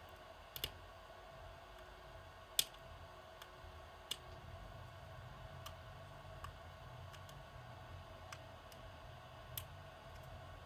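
Scattered sharp clicks and ticks of a thin metal pick or blade catching and tapping against a small metal smartwatch case as it is pried apart, the sharpest about two and a half seconds in.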